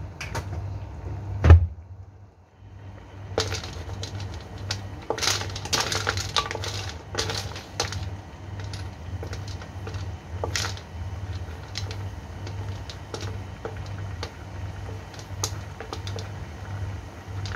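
Sea snail shells clicking and clattering against a steel wok as they are stirred in their sauce, with one loud knock about a second and a half in, over a steady low hum.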